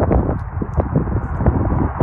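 Wind buffeting the microphone: a loud, choppy, uneven rumble.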